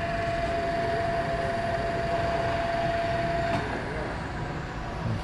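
All-Fill auger filling machine running with a steady hum and a thin high tone. About three and a half seconds in it cuts off and a faint whine falls away as the drive winds down. This fits power dropping out through the funnel safety interlock.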